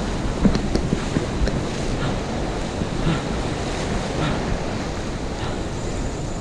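Surf washing in over the sand at the water's edge, with wind buffeting the microphone. A few short clicks come between about half a second and a second and a half in.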